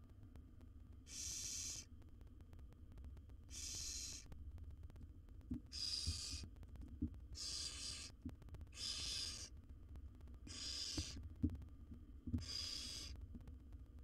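Barn owl nestlings giving their hissing begging call ("snoring"): seven rasping hisses, each under a second long, about every one and a half to two seconds. A few soft knocks from the nest box fall among the later hisses.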